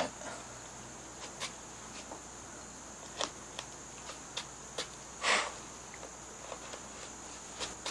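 Narrow carving gouge pushed by hand into Alaskan yellow cedar, paring out small chips: scattered short, crisp clicks and snicks as it cuts, with one longer slicing cut about five seconds in.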